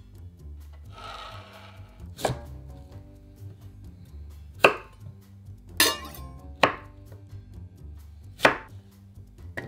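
Chef's knife cutting a beet on a wooden cutting board: five sharp knocks of the blade meeting the board, spaced about one to two seconds apart, with a softer rustling cut about a second in.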